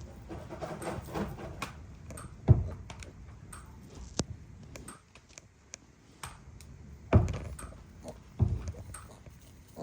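Farm animals moving about a barn pen: irregular knocks and thumps, the loudest about two and a half seconds in and again about seven seconds in, over soft rustling.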